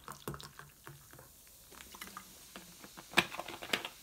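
Sparkling water poured from a plastic bottle into a glass of mint lemonade, the pour ending within the first second, then the carbonated drink fizzing with faint scattered popping ticks as the foam settles. Two sharper clicks come near the end.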